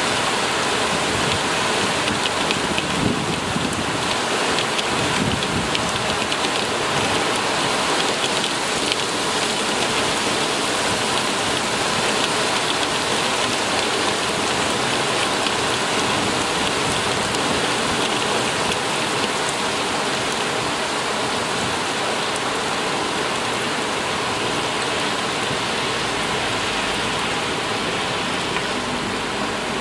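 Heavy rain pouring down onto a flooded street and nearby roofs: a loud, steady, dense hiss of falling water that does not let up.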